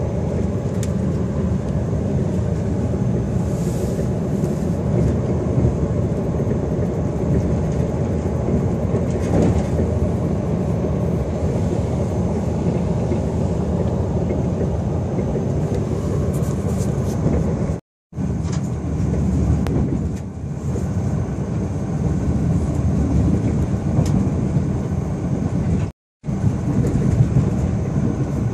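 Steady rumbling running noise of a passenger train heard from inside the carriage, with faint intermittent clicks. The sound cuts out to silence twice for an instant, about two-thirds of the way through and near the end.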